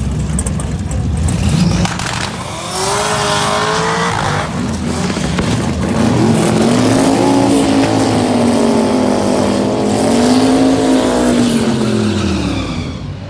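Drag-race car engines revving hard with tyre squeal from burnouts and launches at the starting line. About three seconds in, the engine pitch climbs steeply; from about six seconds one engine holds a high wavering note that falls away near the end.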